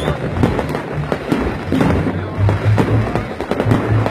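Aerial fireworks going off in quick succession: a dense run of sharp cracks and pops, with music playing underneath.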